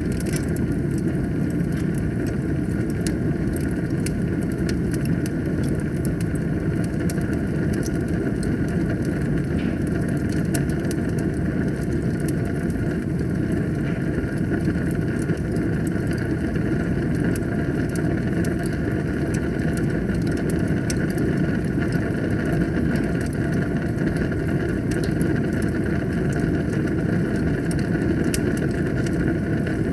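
Wood fire burning in a fireplace: a steady low rumble of flames with frequent small crackles and pops throughout.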